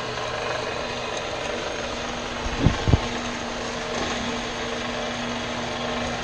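Klutch 4x6 metal-cutting bandsaw running with no load, its motor and turning blade wheels making a steady hum, with the blade tracking just adjusted to run true. Two dull thumps come about two and a half seconds in.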